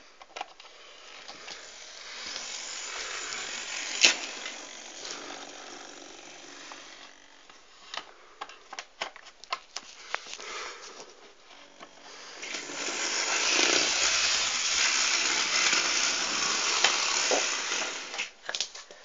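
Small electric motor of a Hornby 0-4-0 model locomotive running, with its wheels rattling along the track; softer at first, then clicks and knocks, then louder running from about halfway until just before the end.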